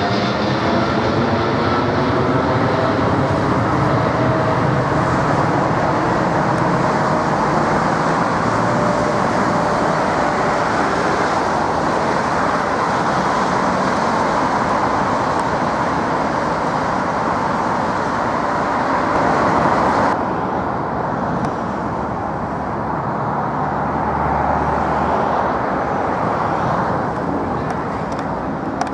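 Twin-engine widebody jet airliner, a British Airways Boeing 777, on departure climb. It passes overhead with a falling engine whine, then its engines run on as a steady, loud rumble as it climbs away. About two-thirds through, the sound cuts abruptly to a duller, slightly quieter jet rumble.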